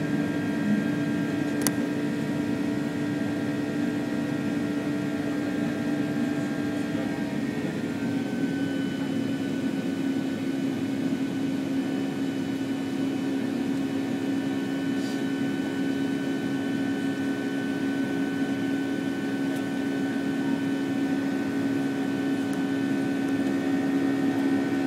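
Boeing 757-300 jet engines heard from inside the passenger cabin during the climb after takeoff: a steady drone with a hum and several whining tones, which step slightly lower in pitch about eight seconds in.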